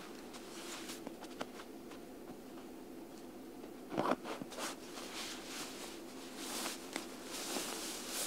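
Handling of a mesh bug net and nylon camping gear: scattered rustles and small clicks, with a louder cluster of rustling about four seconds in and more near the end.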